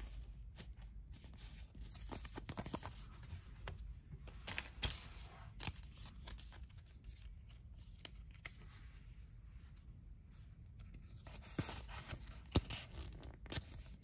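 Quiet close-up handling sounds of an embroidered felt patch and a small paper sticker book: scattered scratches, taps and paper rustles. A sharper burst of rustling with a crisp click comes a couple of seconds before the end as the book is opened.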